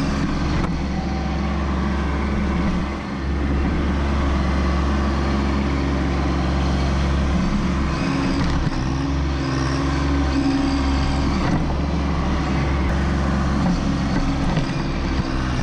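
Kubota B2601 compact tractor's three-cylinder diesel engine running steadily, with a brief dip in level about three seconds in.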